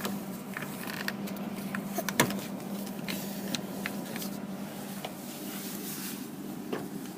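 Scattered light clicks and knocks of a plastic refrigerator water filter cartridge being handled and pushed into its housing, the loudest about two seconds in, over a steady low hum.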